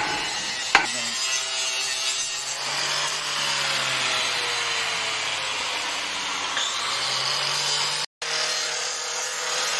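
Handheld angle grinder grinding down new rear brake shoe linings that are too thick for the drum to fit and turn, running steadily with its pitch sagging for a few seconds in the middle. A single sharp knock comes about a second in.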